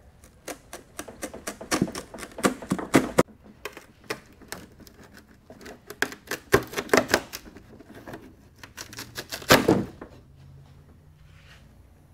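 Irregular sharp cracks, snaps and knocks of the glued seam of a 1964 Corvette's fiberglass front end breaking loose as it is pried and worked apart, stopping about ten seconds in.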